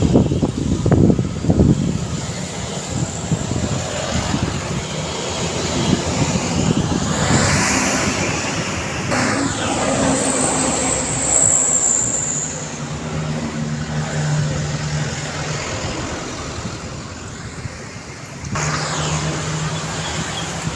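Busy road traffic: motor vehicles passing one after another, with a heavy low rumble in the first two seconds and a steady engine drone later on. A brief high-pitched squeal comes about ten seconds in.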